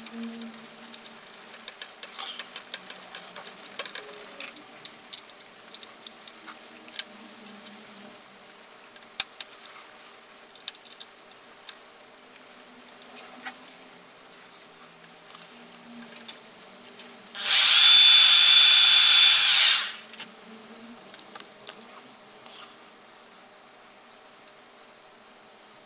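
Scattered light clicks and ticks of metal tools and small parts being handled and worked against the steel machine stand. About two-thirds of the way through, a loud, steady rushing noise with a thin high whistle runs for about two and a half seconds, then stops.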